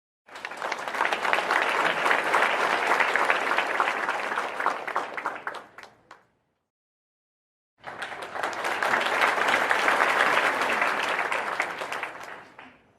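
Crowd applause in two separate takes: each is about five to six seconds of dense clapping that rises quickly, holds, then tapers off, with a gap of dead silence between them.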